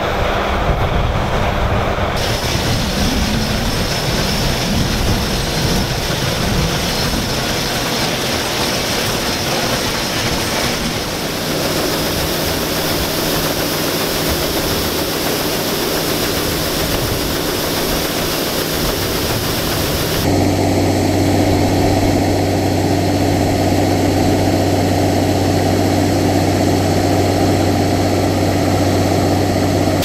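1977 Gleaner M2 combine running steadily, first harvesting soybeans and then unloading them through its auger into a wagon. The steady machine noise changes abruptly about two, eleven and twenty seconds in. In the last stretch a deep, even hum stands out.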